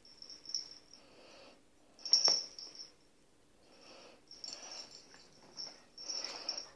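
Dogs at play: bursts of breathing and snuffling about every second, with high squeaky noises, and one sharp knock about two seconds in.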